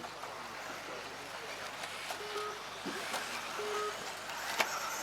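Electric off-road RC buggies racing on a dirt track: a steady hiss of motors and tyres with scattered sharp clacks, the loudest about four and a half seconds in. Two short electronic beeps sound about a second apart in the middle.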